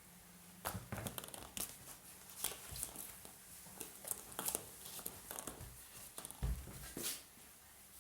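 Irregular crinkling and rustling, with scattered sharp clicks, as something is rummaged or moved through, starting about half a second in and stopping near the end.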